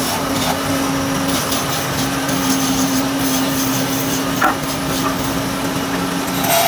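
Wood lathe running in a workshop: a steady motor hum over the noise of a spinning wooden spindle, with a short knock about four and a half seconds in.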